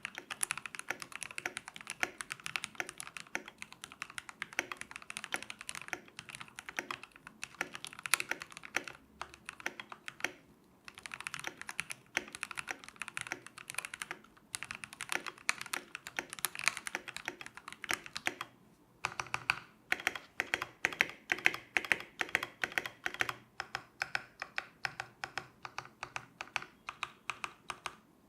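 Typing on a Keychron K8 Pro mechanical keyboard with its stock pre-lubed switches and Keychron OSA keycaps: fast, continuous keystrokes in bursts, broken by a few short pauses. The stabilizers have been tuned so the keys no longer rattle.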